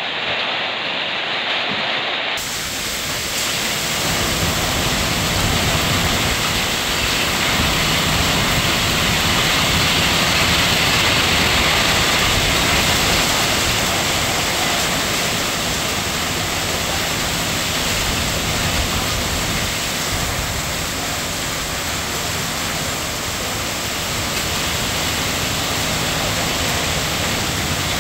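Hail and rain falling on a paved street: a dense, steady hiss that turns fuller and brighter about two seconds in.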